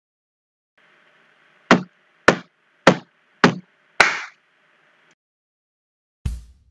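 Count-in for a backing track: five evenly spaced percussive clicks, about 0.6 s apart, the last landing on the count of one. Just before the end the accompaniment's first beat comes in.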